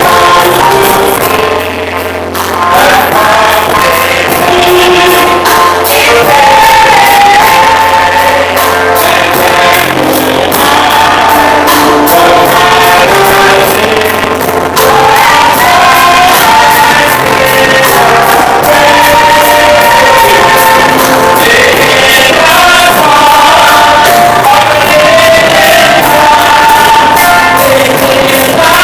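Loud gospel music: a lead singer and backing choir over a band with a steady, fast beat.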